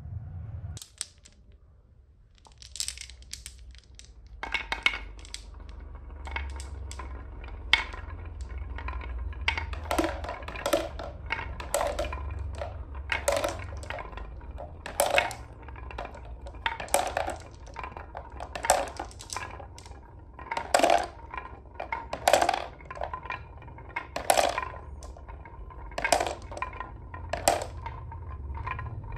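Marbles rolling down a carved wooden track with a wavy groove, a low rumble under them, knocking against the curves and clacking as they drop into a plastic toy dump truck's bed. From about four seconds in, the sharp clacks come every second or two.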